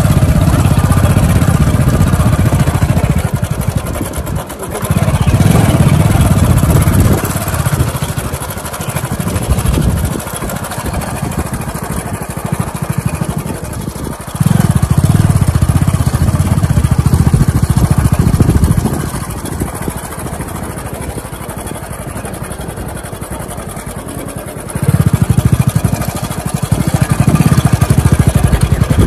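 Motorcycle engine running while riding along a rough dirt track. A heavy low rumble swells and drops away several times.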